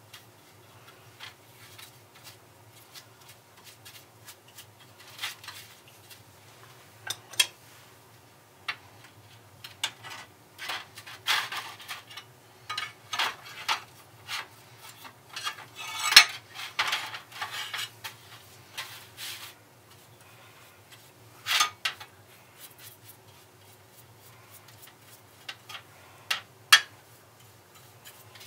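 Metal parts being handled: irregular clinks, knocks and short scrapes, busiest in the middle, with a few sharper knocks.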